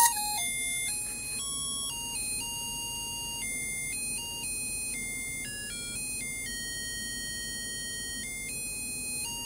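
Electronic beeping melody from a laser harp kit's microcontroller through a small speaker: a built-in programmed tune of plain buzzy notes stepping up and down in pitch, each held from a fraction of a second to about a second.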